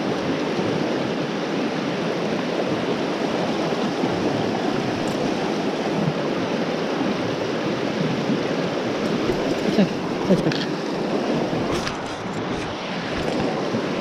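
Shallow, fast mountain stream rushing over rocks in a riffle, a steady rush of water. A few light clicks come through about ten seconds in.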